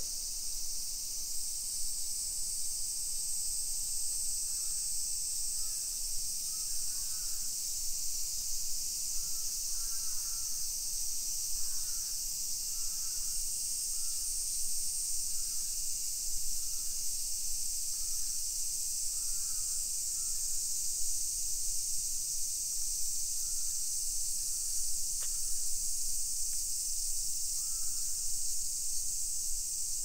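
Summer cicada chorus, a steady shrill drone filling the air, with short bird calls now and then.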